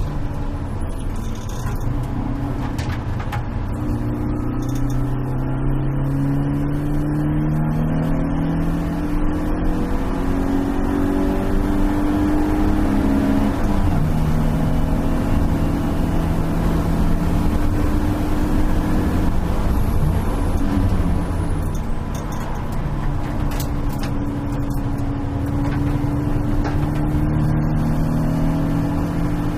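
BMW E36 318is four-cylinder race car engine heard from inside the stripped cabin at full throttle. It climbs steadily in pitch and drops at upshifts about halfway through and again a few seconds later, then dips briefly before climbing again near the end. Road and wind noise run underneath.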